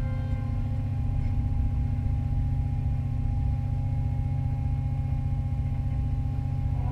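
Doosan DX225-3 excavator's diesel engine running steadily: a continuous low rumble with a steady higher hum above it.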